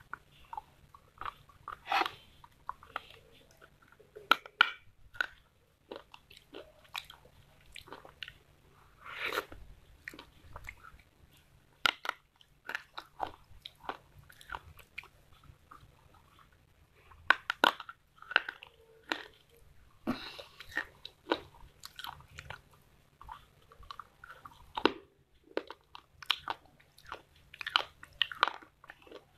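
Crunching and chewing of hard, dry earthen pieces (clay pot and slate pencil) dipped in a wet paste. Sharp, irregular bites and crunches come in clusters of several a second, with softer chewing between.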